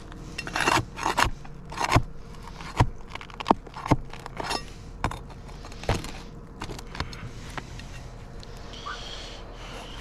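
Old brittle asphalt three-tab shingles being pried up and worked loose with a flat bar: a quick series of sharp scrapes and clicks for the first six seconds or so, then only a few softer scrapes.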